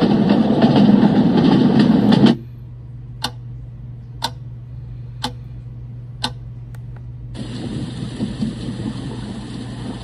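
A small white noise machine's speaker plays a fire-crackling track, which cuts off about two seconds in as the setting is changed. A quieter sound follows, a steady low hum with a sharp tick about once a second. About seven seconds in, a soft steady hiss of noise begins.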